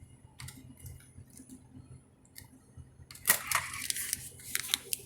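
Small clicks and plastic handling sounds at a single-serve coffee machine, as a coffee pod and cup are readied. About three seconds in, a sharp clack starts a busier run of clicks and rattles.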